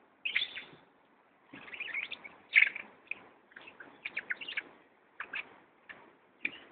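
Birds chirping: an irregular string of short, high-pitched chirps, loudest about two and a half seconds in.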